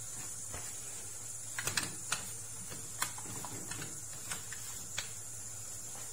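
Pressure cooker on a gas stove hissing steadily, a sign that it has come up to pressure. A few light clicks and knocks come from handling the pot, in a cluster about two seconds in and then singly up to about five seconds in.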